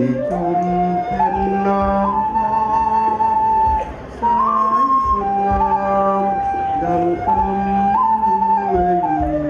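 A flute-type wind instrument plays a slow melody of held notes over a PA, stepping up and down, with lower notes sounding beneath it. There is a short break, as for a breath, about four seconds in.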